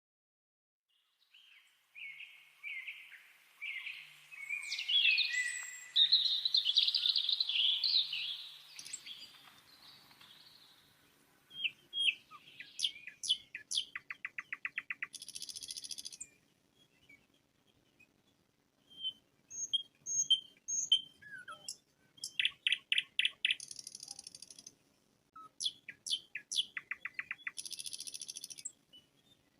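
Wild songbirds singing in woodland: a loud, rich warbling song for the first several seconds, then repeated short phrases of rapid trills mixed with sharp high chirps.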